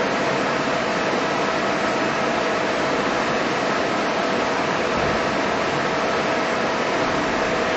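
Steady mechanical hum and hiss with one constant, unvarying tone, such as machinery or ventilation running.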